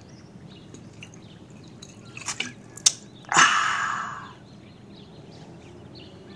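A man drinking from a glass Coca-Cola bottle: a few short swallowing noises about two seconds in, a sharp click, then a loud breathy exhale lasting about a second.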